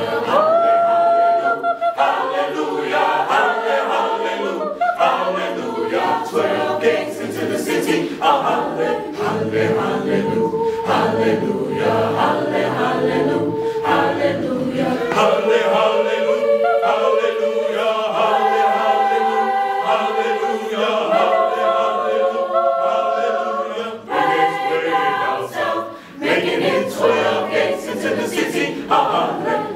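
Small mixed vocal ensemble singing a cappella, several voices holding sustained chords in harmony, with two short breaks in the sound near the end.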